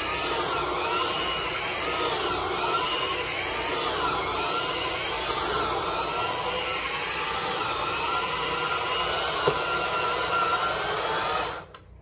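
A HOST CRB counter-rotating brush carpet machine running and scrubbing carpet: a noisy, steady motor hum with a rubbing brush sound whose pitch wavers up and down as it is worked. It is switched off shortly before the end.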